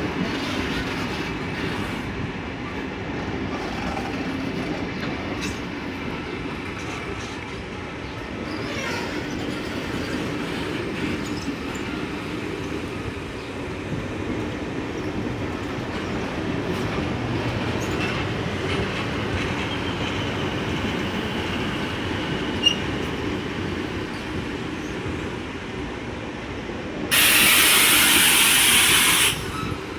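Toshiba electric multiple-unit trains running through, a steady rumble and clatter of wheels on the rails with a faint squeal partway through. Near the end a loud hiss lasts about two seconds and then cuts off.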